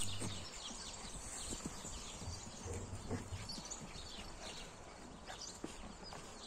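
Puppies scuffling and play-fighting on dirt ground with a larger dog, with scattered short high squeaks and patter of paws.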